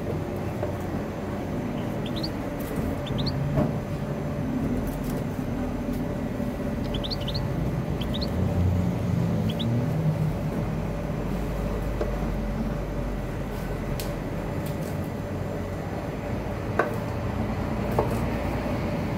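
Knife cutting raw chicken wings on a wooden cutting board, with a few sharp knocks of the blade striking the board, the last two near the end. Underneath runs a steady low rumble, and a handful of short, rising high squeaks come in the first half.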